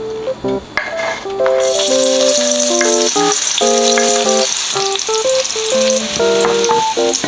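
Chopped green onion whites frying in oil in a nonstick pan: a dense sizzle that starts suddenly about a second and a half in, with a wooden spoon stirring. Background piano-like music plays throughout.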